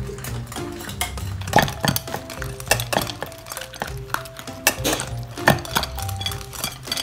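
Two Shiba Inus wolfing dry kibble from stainless-steel bowls: quick crunching and many sharp clinks of kibble and muzzles against the metal, over background music with held notes.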